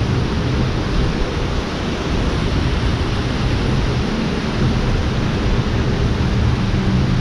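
Steady rushing of water pouring through canal lock gates into the lock chamber, with an unsteady low rumble underneath.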